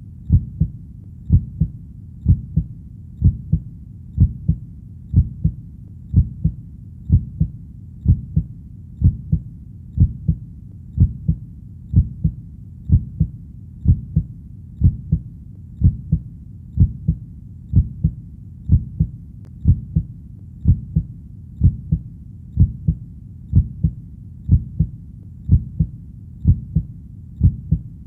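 Heartbeat: a steady, low two-part lub-dub thump repeating a little faster than once a second, about 60 beats a minute.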